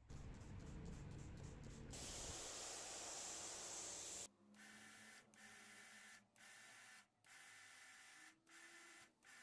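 Pressure washer spraying water onto a van's pop-top roof, fairly faint: a steady hiss of spray, densest for a couple of seconds, then the spray stopping and starting about once a second over a steady machine whine as the trigger is worked.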